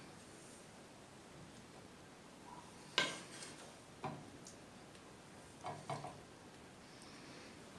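Quiet clinks and knocks of a wooden spatula against a ceramic plate and a nonstick pan as food is served out: one sharp knock about three seconds in, then a few softer ones.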